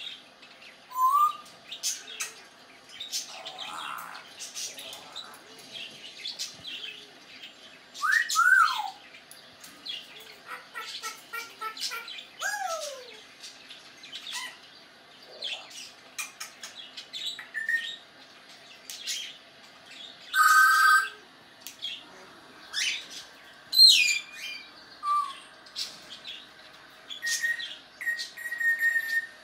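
African grey parrot making a string of varied sounds: short whistles, falling whistle glides, a quick run of short notes and many clicks, with pauses between them.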